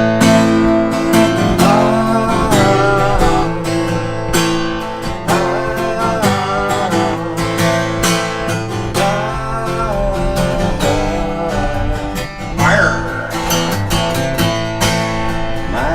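Instrumental break in a folk-style ballad: strummed acoustic guitar with a lead melody line over it.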